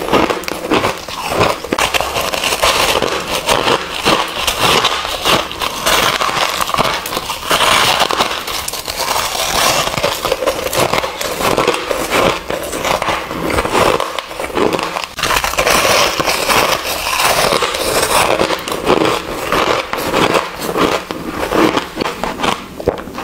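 Close-miked crunching and chewing of frozen ice: a dense, continuous run of crackles and sharp crunches as mouthfuls of pink coloured ice are bitten and ground.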